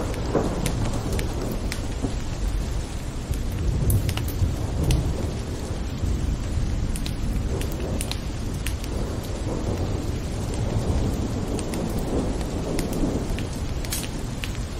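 Steady rain falling, with scattered ticks of drops and a low thunder rumble that swells and fades a few times.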